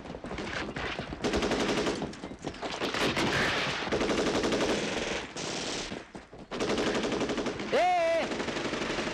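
Sustained bursts of automatic gunfire, rapid and near-continuous, easing off briefly about two-thirds of the way through. Near the end a man gives a short shout over the firing.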